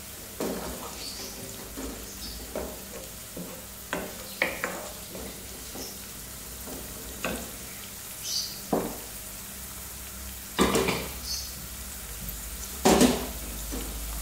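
Chopped onions, green chillies and whole spices sizzling steadily in oil in a nonstick pan, stirred with a spatula that scrapes and knocks against the pan now and then. The two loudest scrapes come near the end.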